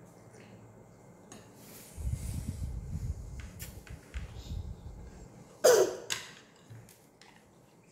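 A spoon scraping and clinking on a child's plastic plate as rice is scooped up, with dull knocks against the table. One sudden loud squeak about two-thirds in.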